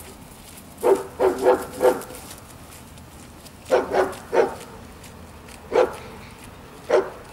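German Shepherd barking in short, sharp barks, nine in all: a quick run of four about a second in, three more in the middle, then two single barks near the end.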